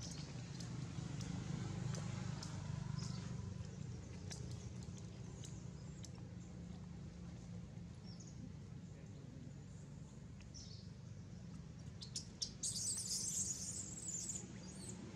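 Outdoor ambience: scattered short high-pitched chirps over a steady low rumble. About twelve and a half seconds in comes a louder high-pitched burst that lasts about a second and a half.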